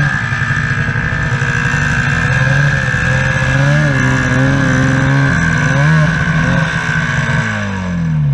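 Snowmobile engine running and revving as the sled is driven up a ramp onto a trailer, its pitch rising and falling, then winding down near the end.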